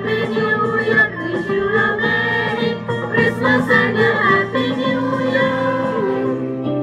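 Mixed choir of women and men singing a Christmas carol together in held, changing notes, with keyboard accompaniment.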